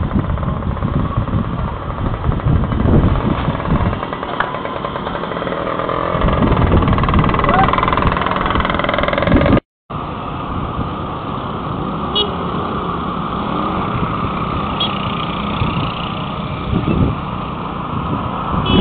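Street traffic picked up by a CCTV camera's microphone: motorcycles and motorcycle tricycles running past, with people's voices in the first half. The sound drops out briefly about ten seconds in.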